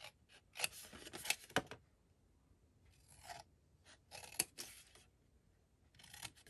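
Scissors snipping into black paper, making short cuts in four quick groups with pauses between, and a sharp click of the blades closing now and then.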